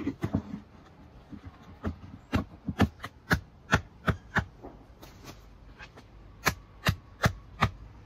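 Meat cleaver chopping into a pheasant carcass on a table: about fifteen sharp chops, coming in uneven bursts of two or three.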